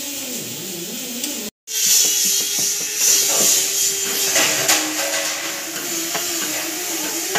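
Metal tool clicking and scraping against the pump flange of a steel fuel tank, over a steady hum and hiss. The sound drops out completely for a moment about one and a half seconds in.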